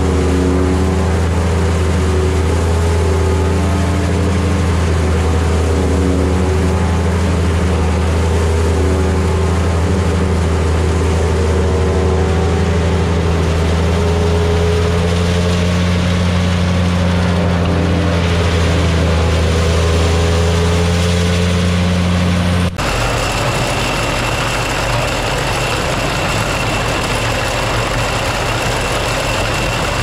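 A machine engine running steadily with a deep, even hum. About three-quarters of the way through it cuts off abruptly to a different steady machine sound with a thin, high, constant whine over a noisy rush.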